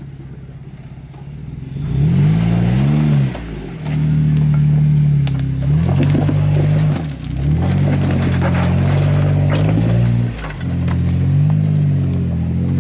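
Jeep Wrangler JK Rubicon's engine revving in repeated bursts as it crawls up a rocky trail, its pitch rising and falling several times. It gets much louder about two seconds in, with scattered clicks over it.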